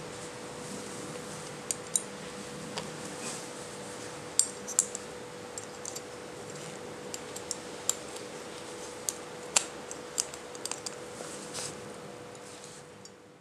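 Small aluminium plates and parts clicking and clinking lightly as they are handled and fitted together, in scattered irregular taps over a steady faint hum.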